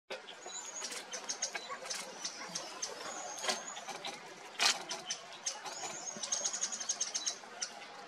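High, thin bird chirps and short whistled notes, with a quick run of them about six to seven seconds in, over many sharp clicks of birds pecking at seed on stony ground. About four and a half seconds in comes a louder brief flutter of wings.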